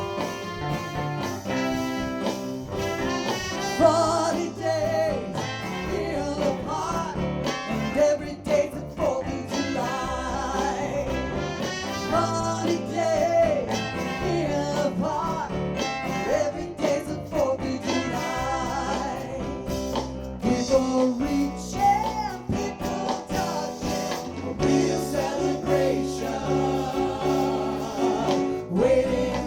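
Live music from a ten-piece soul band, with electric guitar and horns over a steady beat.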